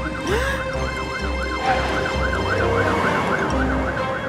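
Cartoon fire engine siren wailing quickly up and down, about three or four cycles a second, over the low pulsing rumble of cartoon truck engines brumming.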